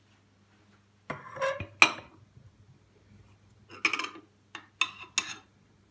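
A spoon clinking and knocking against a cezve holding melted butter and grape molasses, in two bouts of short clatter: one about a second in and several strokes again near the end.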